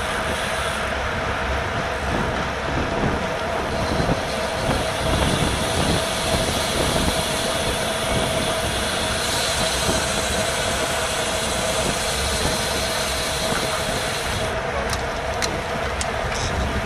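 Road bicycle rolling at racing speed in a pack: wind rushing over a GoPro microphone, with road and drivetrain noise and a steady hum. A few sharp clicks come near the end.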